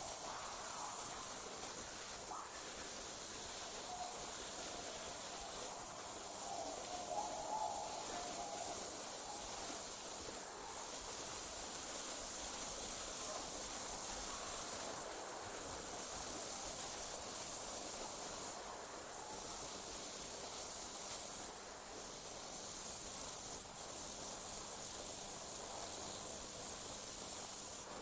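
Night insects, likely crickets, trilling in a steady high-pitched chorus. The trill breaks off briefly every few seconds, over a faint background hiss.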